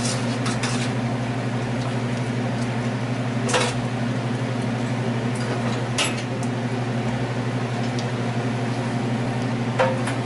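A steady low mechanical hum from a kitchen appliance motor, with a few light metal clicks and clinks as steel tongs and a steel tray are handled.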